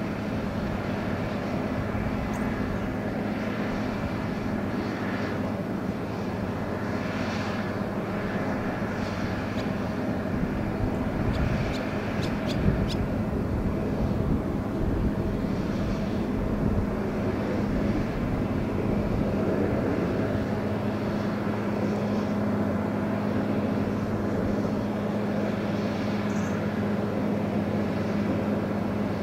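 An engine running at a steady pitch, a constant low drone over a wash of background noise, with a few faint clicks about twelve seconds in.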